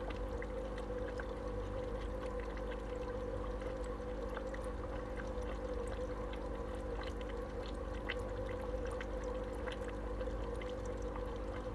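Aquarium filter running: a steady bubbling trickle of water with many small pops, over a steady hum.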